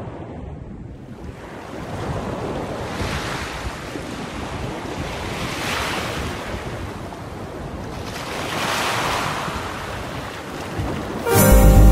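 Surf washing onto a beach, a wave swelling in about every three seconds, with wind rumbling on the microphone. Loud music cuts in just before the end.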